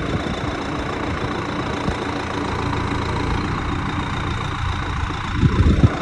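Farm tractor's diesel engine idling steadily close by, with a brief louder low rumble near the end.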